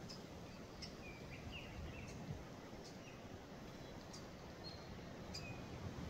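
Small forest songbirds giving scattered short chips and brief chirps, about half a dozen sharp high notes with a few lower twittering chirps between them, over a faint low background rumble.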